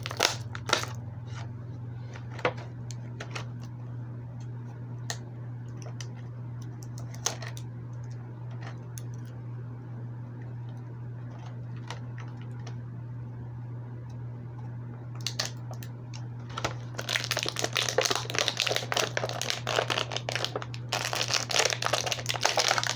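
Action-figure packaging being opened: scattered clicks and taps in the first several seconds, then loud, continuous plastic crinkling over the last six seconds or so, over a steady low hum.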